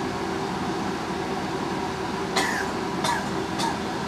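A man coughing three short times, starting about two and a half seconds in, from a sip of raw homemade white lightning, a harsh high-proof distilled spirit.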